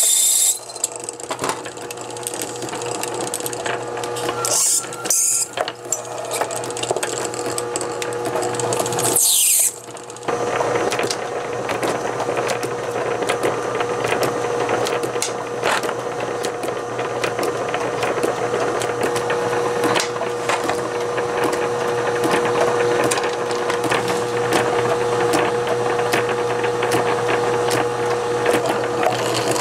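A small bench lathe's motor running with a steady hum, with scraping and many light clicks from hand tools working a fountain-pen part.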